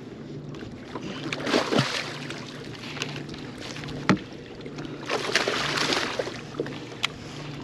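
Landing a hooked striped bass from a bass boat: bursts of splashing about a second and a half in and again around five seconds, with a few sharp knocks on the boat as the landing net is picked up.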